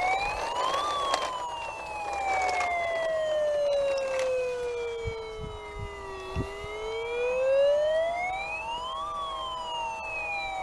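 Toy fire engine's electronic siren wailing, rising and falling slowly in pitch: it peaks about a second in, sinks for about five seconds, then climbs again and peaks near the end. A few faint clicks come in the first half.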